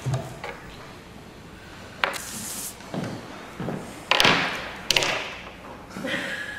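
Scattered knocks and taps, several in a row with the loudest about four seconds in, and a brief rustle about two seconds in.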